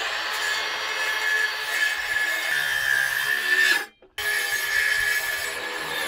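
Handheld circular saw cutting through rough-sawn timber, running with a steady high whine. It cuts out briefly about four seconds in, then runs again.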